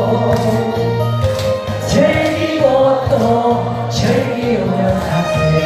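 Korean trot song on a backing track with singing over it, between the lyric lines the recogniser caught.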